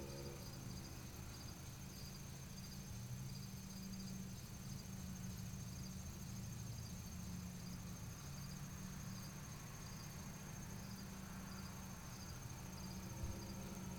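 Crickets chirping faintly and steadily over a low hum. A distant motorized bicycle engine fades out in the first half second and comes back near the end, rising in pitch.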